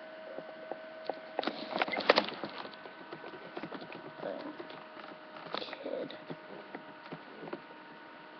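Steady electrical hum with a cluster of sharp clicks and knocks about one to two seconds in, then a few softer knocks and thuds.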